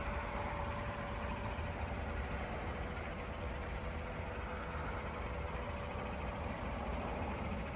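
Chevrolet Silverado pickup's engine idling steadily, a low rumble with a faint steady hum above it.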